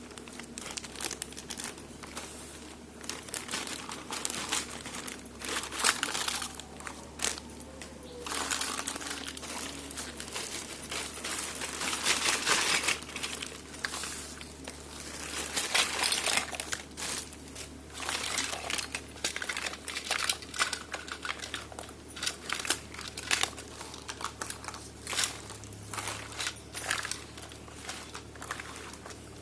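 Toy packaging being handled and opened, crinkling and rustling irregularly in bursts with small clicks and knocks, loudest about halfway through.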